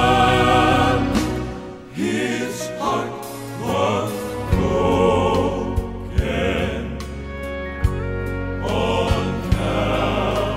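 Southern gospel male vocal quartet recording: voices singing long, wavering notes in phrases over instrumental backing, with a rising sung swoop about two seconds in.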